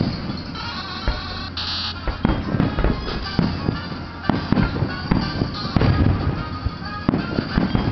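Aerial firework shells bursting in a continuous run of bangs, about two a second, with crackle between them.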